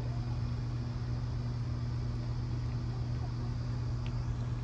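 Steady low mechanical hum, unchanging throughout, with a few faint clicks near the end.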